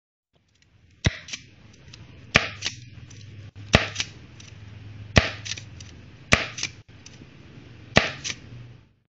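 Spring-powered Lego revolver mechanism snapping six times, about one and a half seconds apart. Each is a sharp plastic snap of the spring-loaded striker followed by a softer click.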